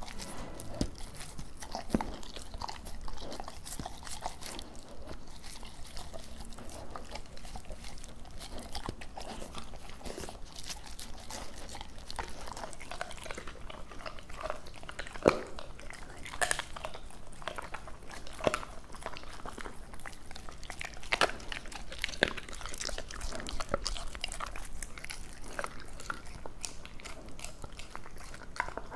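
Labrador retriever chewing and biting raw duck close to the microphone: wet chewing with irregular sharp crunches, the loudest a little past the middle.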